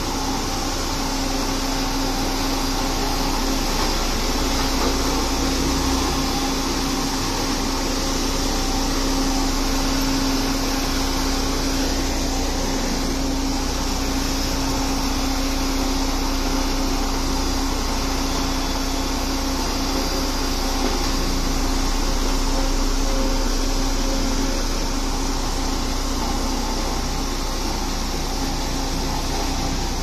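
LiuGong single-drum road roller's diesel engine running steadily, a constant hum with a steady droning tone.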